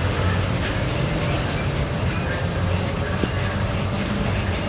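Steady low rumble of outdoor city noise, with a couple of faint clicks.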